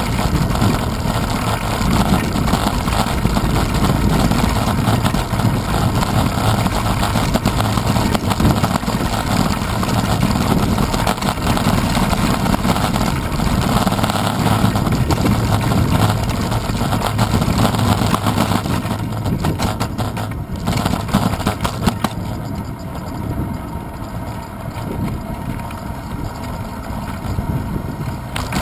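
Bicycle rolling over hexagonal paving stones, heard through a handlebar-mounted camera: a loud, steady rumble and rattle of tyre and handlebar vibration. About three-quarters of the way through it becomes quieter and smoother as the bike moves onto asphalt.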